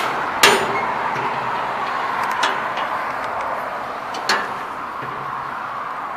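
Three sharp metal clicks about two seconds apart, the first the loudest, from handling the open steel firebox lid and its prop rod on a smoker, over a steady background noise.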